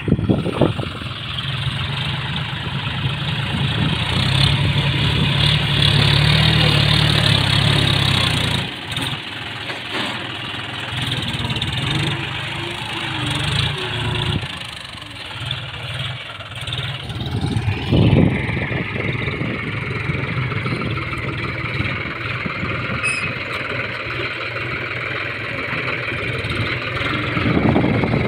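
John Deere tractor's diesel engine running as it works a front loader in sand, with the engine note heaviest from about four to eight seconds in, then easing and rising and falling as it scoops, lifts and dumps.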